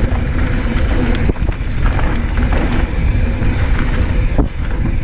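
Polygon Square One mountain bike descending fast over rough dirt and rock: a steady rush of wind on the microphone and tyre rumble, with sharp knocks from the bike hitting rocks about a second in and again near the end.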